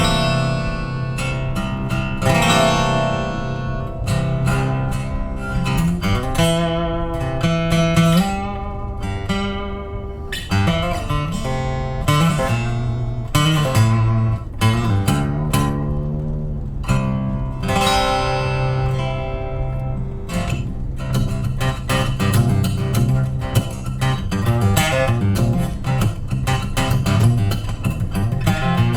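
Six-string acoustic guitar playing the instrumental introduction of a song, picked notes over a steady bass line.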